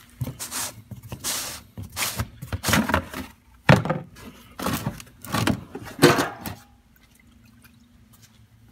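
Black plastic oil drain pan handled and lifted off a concrete floor, the used engine oil inside it sloshing while the pan scrapes and knocks, in a series of irregular bursts with a sharp knock about halfway through; it stops about two seconds before the end.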